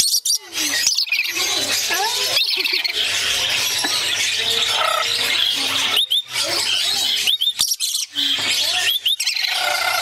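Pair of caged lories, one a rainbow lorikeet, calling continuously with harsh chattering screeches, broken by short high rising chirps a few at a time.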